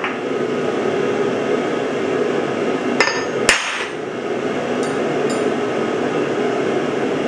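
Ball-peen hammer striking a steel punch set on a steel channel to mark a hole: two sharp, ringing metallic strikes about half a second apart, followed by two faint clicks.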